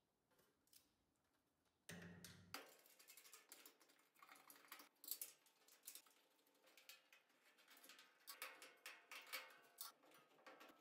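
Faint clicking, tapping and light knocking of metal parts being handled as a stainless steel front shelf is fitted onto its brackets on a pellet grill's cabinet, starting about two seconds in with a low bump.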